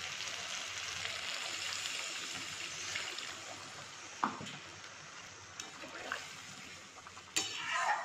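Water poured into a kadai of hot fried mustard paste, trickling and hissing, with the hiss dying away over the first few seconds. Then a few sharp clicks and a brief clatter of the metal spatula against the pan.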